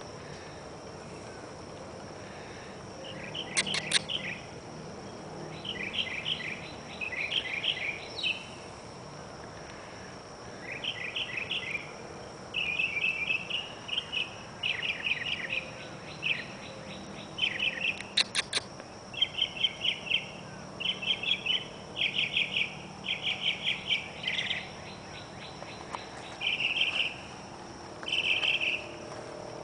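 Night insects chirping in short, rapidly pulsed bursts, about one a second, over a steady high-pitched drone, with two brief sharp clicks.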